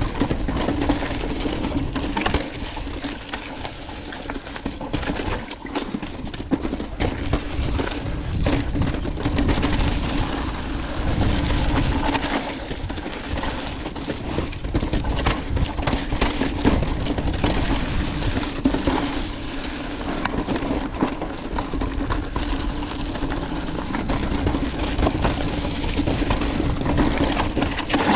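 2018 Santa Cruz Hightower LT mountain bike descending a rocky dirt trail: tyres crunching over dirt and stones, with constant rattles and knocks from the bike over the rough ground and a steady hum underneath.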